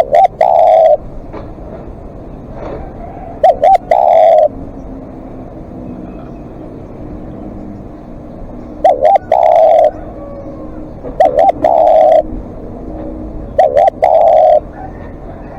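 Spotted dove cooing: five phrases about every two to three seconds, each two short quick notes followed by a longer held coo.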